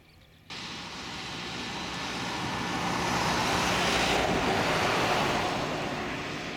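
Large jet aircraft on its take-off run, a steady roar of jet engines. It starts abruptly, grows louder to a peak about four seconds in, then eases slightly.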